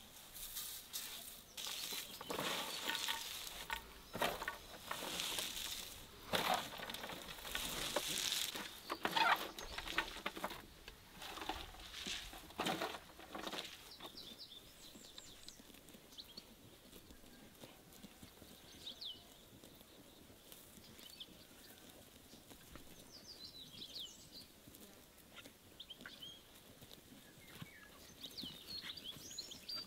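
Hands tossing and squeezing salted shredded cabbage and carrot, a run of crisp rustling crunches through roughly the first half. After that it goes quieter, with small birds chirping now and then.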